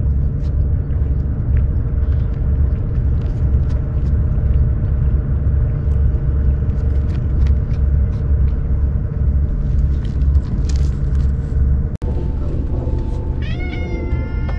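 A steady low rumble, then near the end a tabby cat meows once, one drawn-out call that wavers in pitch.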